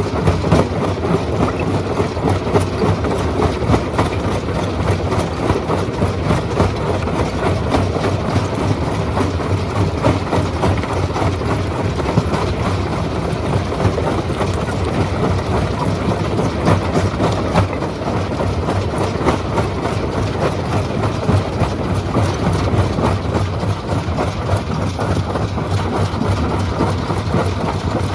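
Stone crushing machine running: a steady heavy mechanical drone laced with a continuous dense rattle and clatter.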